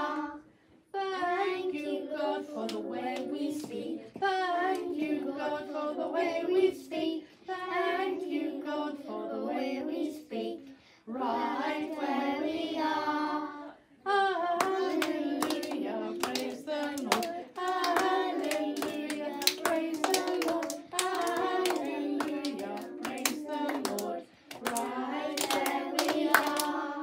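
A group of young children singing together with clapping and hand claps in time. The singing breaks off briefly a few times, most clearly about halfway through, and then starts again.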